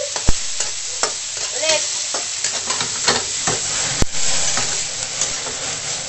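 Onion, garlic and tomato sizzling in hot oil in a steel wok while a metal spatula stirs them, scraping and clicking against the pan. Two louder knocks from the spatula on the wok come about a third of a second in and about four seconds in.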